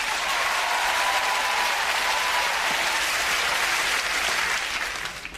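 Studio audience applauding loudly, starting all at once and dying away near the end.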